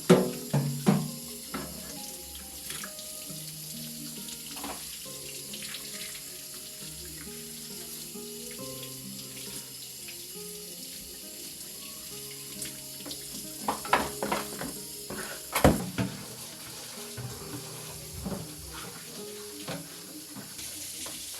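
Tap water running into a sink, with a few sharp clattering knocks at the start and a cluster of them about two-thirds of the way through, the loudest just before 16 s.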